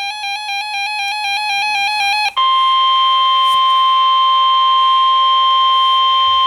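NOAA Weather Radio emergency alert: about two seconds of rapidly switching, warbling data tones, then after a brief dropout the steady, piercing 1050 Hz warning alarm tone starts, the signal that a warning, here a severe thunderstorm warning, is about to be broadcast.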